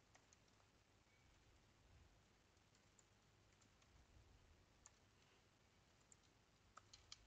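Near silence with faint, sparse computer keyboard keystrokes, a small cluster of clicks near the end.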